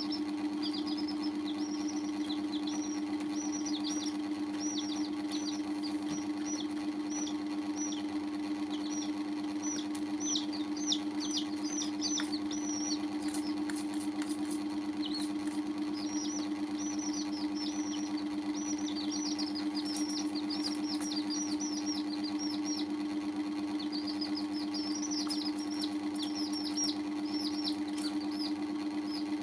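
Baby chicks peeping: quick, high, falling peeps in dense runs, thinning out now and then, over a steady low hum.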